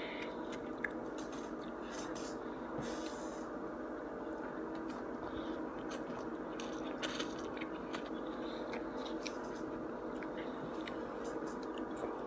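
Eating sounds: a plastic fork scraping and tapping in a foam takeout container of chow mein, and chewing, heard as scattered small clicks and brief scrapes over a steady background hum.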